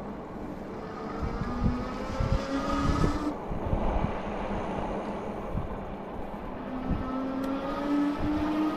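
Electric motor of an Engwe Engine Pro e-bike whining under power, rising in pitch as the bike speeds up, twice: from about a second in until it cuts off abruptly after about three seconds, and again from about six and a half seconds on. Wind rumbles on the microphone throughout.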